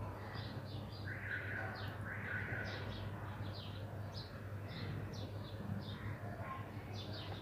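Small birds chirping in the background, short high chirps a few times a second, over a low steady hum.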